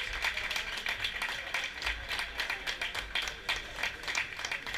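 A rapid, irregular run of sharp claps and taps echoing in a sports hall, with no voice.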